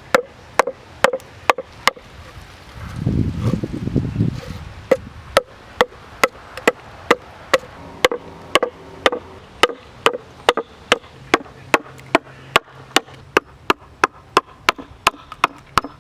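Hand adze chopping into the hollow of an ambrosia maple bowl blank, roughing out the inside: sharp wooden strikes at about two a second. The strikes stop for about two seconds near the start, while a low rumbling noise fills the gap.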